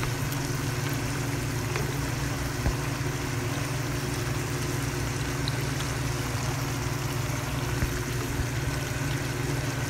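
Green mango pieces bubbling and sizzling in hot oil in a pan as the pickle simmers, the mango already soft. A wooden spatula stirs them now and then with a few light knocks, over a steady low hum.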